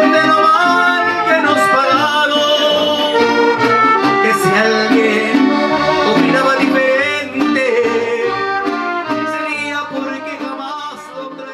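Background music: a Spanish-language song in a stretch without sung words, fading out over the last few seconds.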